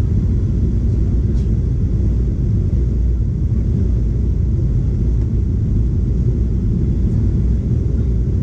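Steady deep rumble of a Boeing 737's engines and airflow heard inside the cabin during the descent to land.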